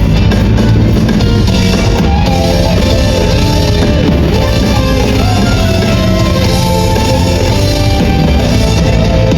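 Loud rock-style music with a drum kit and guitars, playing steadily without a break.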